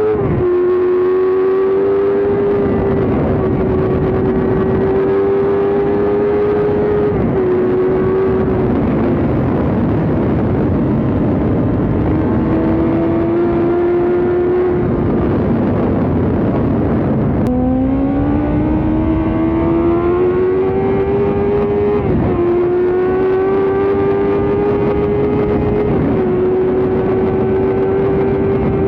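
High-revving sportbike engine held at high revs. Its pitch climbs slowly, then steps down sharply several times as it shifts up through the gears, with one deeper drop and a long climb back midway.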